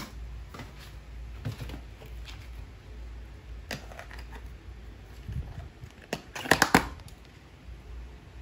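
A plastic ice cream tub is handled on a table and its lid pried off. Light knocks and clicks are scattered through, then a quick cluster of sharp plastic cracks about two-thirds of the way in as the lid pops free.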